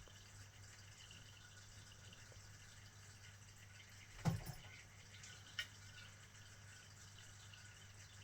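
Quiet steady low hum, broken about four seconds in by a single dull knock and, about a second and a half later, a short sharp click.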